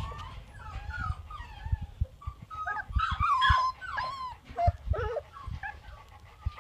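Young puppy whimpering and squeaking in a string of short, wavering high cries, loudest about halfway through, with a few soft thumps.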